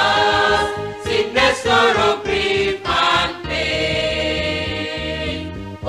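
Choir singing a gospel hymn with instrumental accompaniment: sung phrases and held notes, separated by brief breaths between lines.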